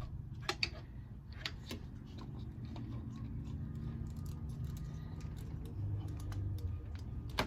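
Irregular metallic clicks and clinks of hand tools slipping and catching on a stuck spin-on oil filter as it is forced to turn, over a steady low hum.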